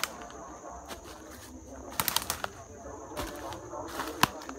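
Footsteps crunching and rustling through dry leaf litter on a steep forest slope, with sharp crackles of leaves and twigs about two seconds in and again near the end, over a steady high insect drone.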